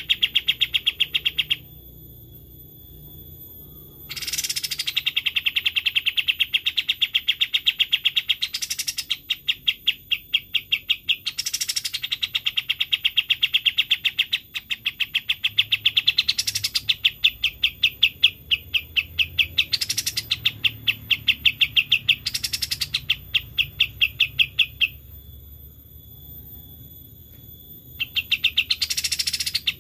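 Kapas tembak songbird singing a long, rapid trill of evenly repeated high notes, about eight to ten a second. Upward-sweeping notes break in every few seconds, and there are short pauses near the start and near the end.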